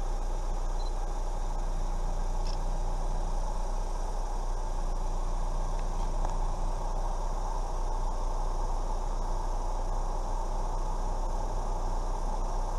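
Red diamondback rattlesnake rattling its tail in a steady, unbroken buzz: a defensive warning from a coiled snake at close range.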